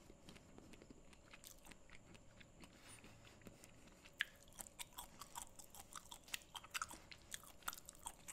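A person chewing and biting cashew nuts close to the microphone: faint, irregular clicks, with a sharper bite about four seconds in.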